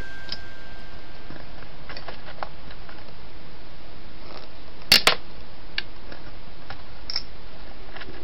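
Steady hiss from a night-vision camera's microphone, with faint scattered ticks and a sharp double click about five seconds in.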